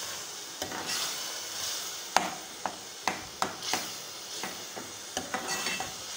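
Wet spice masala (chilli powder and turmeric with a little water) sizzling in hot oil in a pot while a spoon stirs it, with a run of sharp clinks of the spoon against the pot, most of them in the middle of the stretch.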